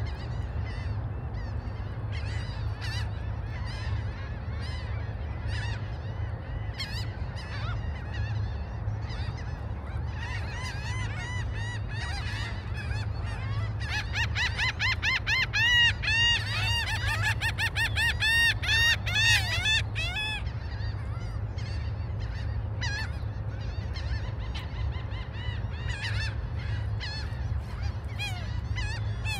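Gulls calling at the shoreline, single calls at first, then a busy run of rapid, repeated calls through the middle that is the loudest part, then scattered calls again. A steady low rumble runs underneath.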